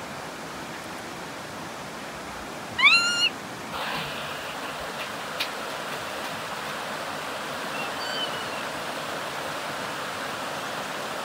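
Stream water rushing steadily over rocks; about three seconds in, a young macaque gives one loud call that rises in pitch and then holds, and a fainter call follows near eight seconds.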